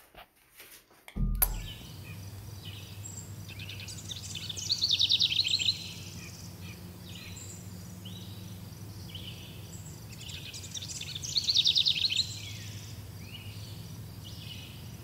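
Outdoor ambience that comes in suddenly about a second in: birds chirping over a steady low hum. Twice a bird sings a louder, fast trill.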